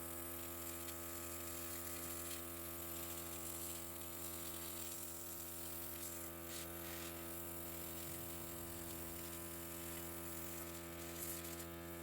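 Small electric airbrush compressor humming steadily, with a faint hiss of air from the airbrush.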